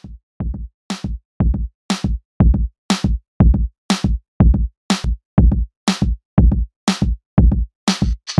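Electronic background music built on a drum-machine beat of about two beats a second. A kick drum falls on every beat, with a sharp snare or clap about once a second. A hissing cymbal layer comes in near the end.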